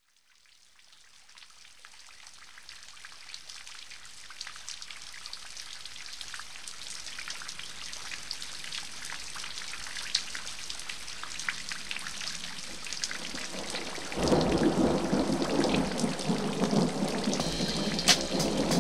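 Heavy rain with thunder, fading in from silence and growing steadily louder, with many small drop ticks. About three-quarters of the way in, a loud, deep rumble of thunder sets in.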